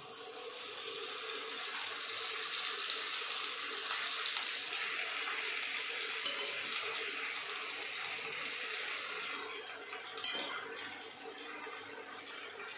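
Vegetables sizzling in a hot frying pan as boiled pasta is spooned in: a steady frying hiss, with a short clink of the slotted spoon against a pan about ten seconds in.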